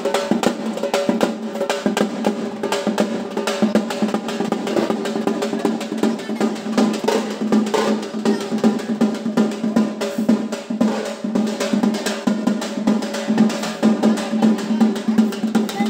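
Fast, continuous drumming with rolls like a snare drum, over a steady held tone.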